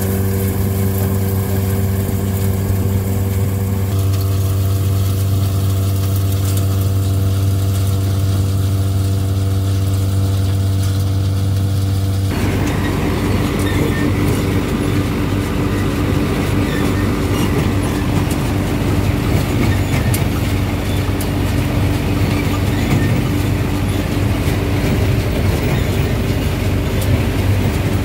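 Heavy machinery running steadily with a low, even hum; about twelve seconds in the sound changes abruptly to a rougher, noisier running that carries on.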